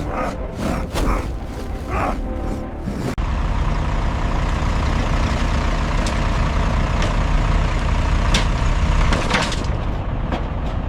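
A heavy truck's engine running with a steady low rumble, with a few sharp knocks and clatters in the first three seconds.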